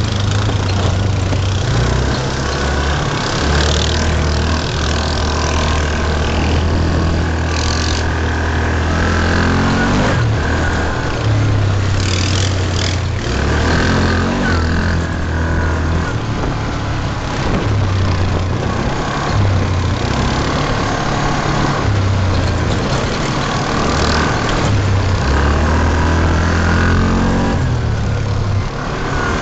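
Yamaha Rhino side-by-side's single-cylinder engine running under way, its note rising and falling with the throttle several times, over a steady hiss of wind and trail noise.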